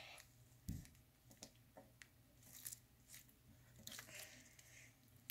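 Slime being squished and stretched in the hands, giving faint, scattered sticky pops and crackles.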